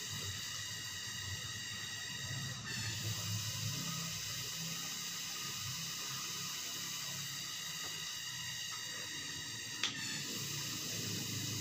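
Steady hiss with faint high steady whining tones over it, and one sharp click about ten seconds in.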